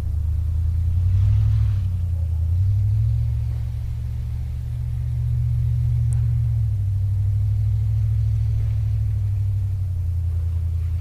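A 1964 Dodge Custom 880's V8 engine runs steadily at low revs, its pitch dropping and rising slightly a few times.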